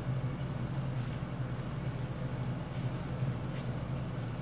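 Steady low background hum, with a few faint soft rubbing strokes of a cloth hand wipe being scrubbed over a palm.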